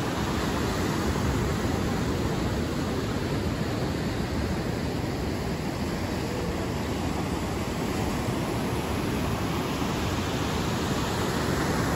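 Steady rush of ocean surf breaking in long lines along a sandy beach, heard as an even roar of white water.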